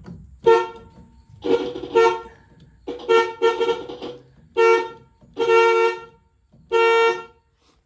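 1966 Plymouth Barracuda's electric car horn sounding in about seven short, uneven blasts, some breaking up mid-blast. The horn contacts at the steering column hub are dirty.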